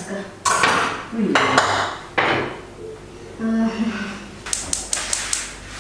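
Stiff self-adhesive decorative sheets rustling and crackling as their backing paper is peeled off and they are handled, in several rough bursts, with a quick run of sharp clicks near the end.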